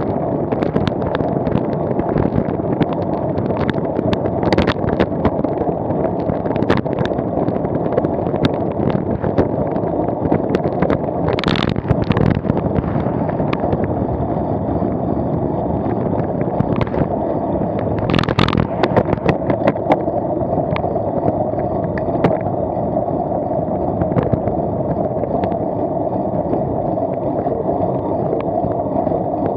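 Wind buffeting a moving vehicle-mounted camera's microphone, a steady rumble with many small knocks and crackles from road and mount vibration. Two brief louder rushes of hiss come about a third and two thirds of the way through.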